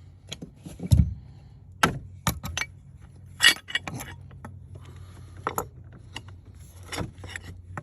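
Metal hand tools clinking and knocking: an irregular run of sharp metallic clicks and taps, loudest about a second in and again near three and a half seconds, over a low steady hum.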